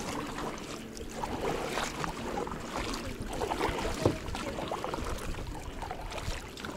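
Water splashing and sloshing around a kayak, in irregular small splashes, with one sharper knock about four seconds in.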